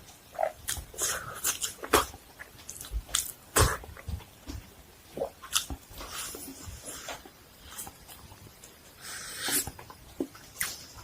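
A person eating close to the microphone: irregular crunches, clicks and smacking mouth sounds of biting and chewing food.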